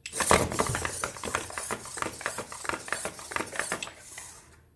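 Petoi Bittle X robot dog's leg servos buzzing, with a dense run of rapid clicks and taps from its plastic legs on the tabletop as it gets up from a crouch. Starts suddenly and dies away near the end.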